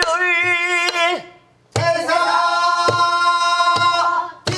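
A woman singing pansori in long, wavering held notes, marked by strokes on a buk barrel drum about once a second. The singing breaks off for about half a second a little over a second in, then resumes.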